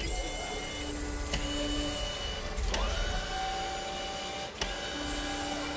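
Sound-effect whirring and whining of small electric motors and gears, several steady whines starting and stopping, with three sharp clicks spread through it.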